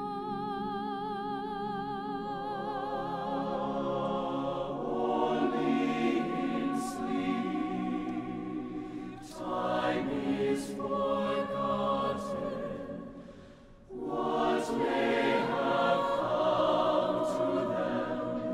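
Mixed choir singing slow sustained chords a cappella, with a soprano soloist's line wavering in vibrato above them at first. The choir swells, falls nearly silent about three-quarters of the way through, then comes back in full.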